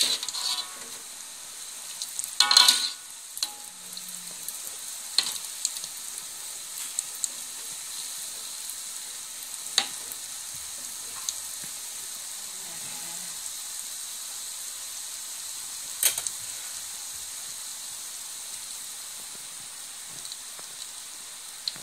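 Yeast donuts deep-frying in oil over a low flame, a steady sizzle. A slotted spatula clacks against the wok a few times as the donuts are turned.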